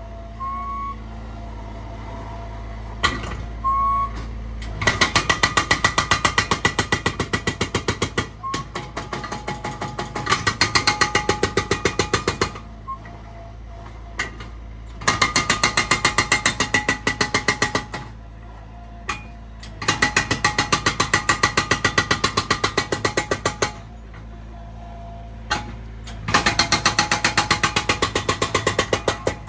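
Skid-steer-mounted hydraulic breaker hammering a concrete slab in four long bursts of rapid blows, with the skid steer's engine running steadily in the pauses between bursts.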